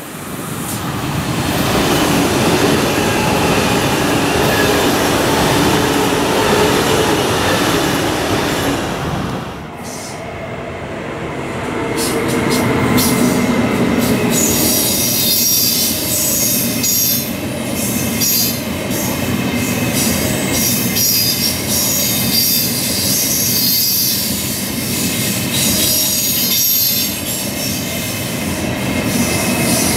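A Deutsche Bahn ICE-T (class 411) electric train approaching and running past, louder over the first two seconds. About ten seconds in it gives way to an ICE 1 (class 401) rolling past: a steady hiss of wheels on rails with a run of repeated clicks.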